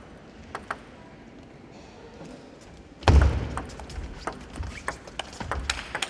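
Table tennis serve and rally: a few light taps of the ball about half a second in, then a heavy thump about three seconds in, followed by quick, uneven clicks of the ball off the bats and the table.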